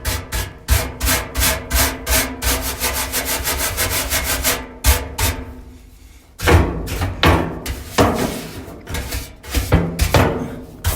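Rapid back-and-forth scrubbing strokes, about three to four a second, cleaning built-up lint and dirt off a clothes dryer's heater housing, with a short pause about halfway through.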